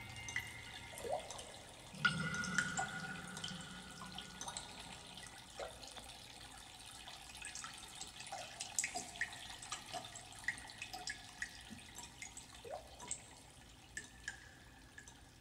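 Faint, scattered water drips: single irregular plinks, some sliding briefly in pitch, with a last ringing note fading at the start.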